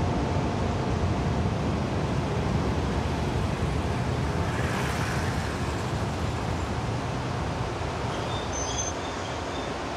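Train running onto a steel railway bridge and slowing to a stop, its running noise slowly dying away. Short high-pitched brake squeals come in near the end.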